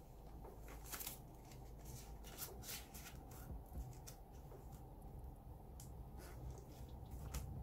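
Faint rustling and crinkling of Australian polymer banknotes and a clear plastic zip envelope being handled, a run of small irregular crackles and ticks.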